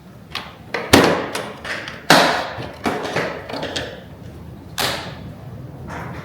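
A run of irregular knocks and clanks, about ten in all, each with a short ringing tail; the two loudest come about one and two seconds in.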